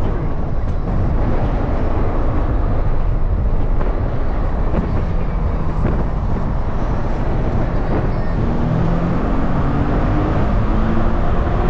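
Nissan 370Z roadster driving with the top down: heavy wind buffeting on the microphone and road noise, with the car's 3.7-litre V6 engine note rising in pitch over the last few seconds.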